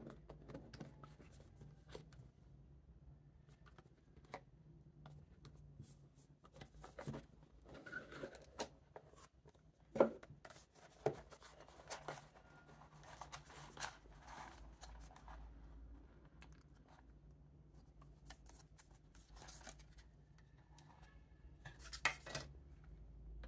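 A smartphone box and its plastic packaging being handled and opened: scattered clicks, scrapes and rustles, the sharpest click about ten seconds in, over a low steady hum.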